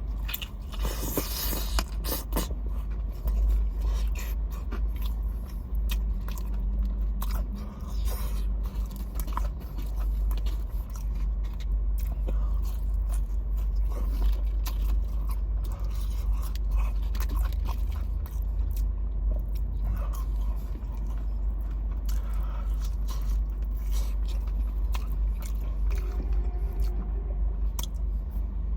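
Close-miked eating sounds: biting into and chewing fried chicken, with many small crunches, clicks and scraping noises, over a steady low hum.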